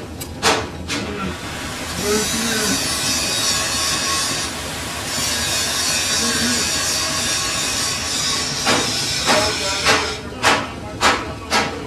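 Machine-shop noise at a lathe holding a large cast-iron V-belt pulley: a steady hiss through the middle, with a few sharp metallic knocks near the start and a quick run of them, about two a second, near the end.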